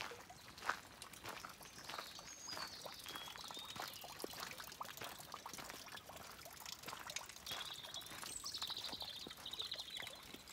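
Birds calling in the open air, with a rapid trilling call near the end, over faint irregular clicks and crackles of footsteps on the towpath.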